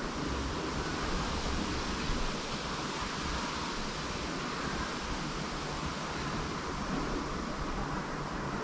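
Steady hiss of background noise with no distinct sounds standing out.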